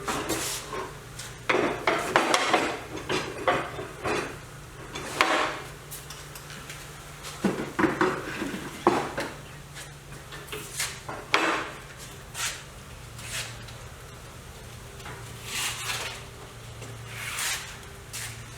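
Irregular metal clanks and knocks of steel stock and tools being picked up, shifted and set down, over a low steady hum.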